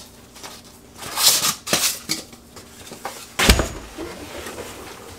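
Flat-pack bookcase being unpacked: scraping and sliding of the cardboard box and white shelf panels, with a heavy thud a little past halfway as a panel or the box is set down on the floor.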